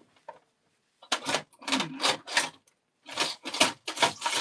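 Small metal pieces, among them little copper bits, rattling and clinking as a hand rummages through them in a container, in several short bursts of clatter starting about a second in.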